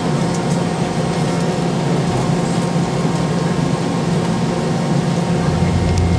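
Steady cabin noise inside a Boeing 717-200 with its Rolls-Royce BR715 turbofans running: a rush of air with a steady hum underneath. A deeper low hum comes in near the end.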